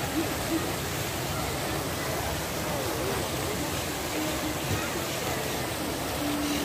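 Fountain jets splashing into a pond: a constant rush of falling water.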